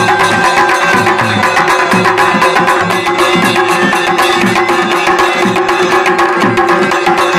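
Kumaoni Chaliya band music: dhol and damau drums beating a steady rhythm under a masakbeen (bagpipe), whose held drone tone runs beneath its melody.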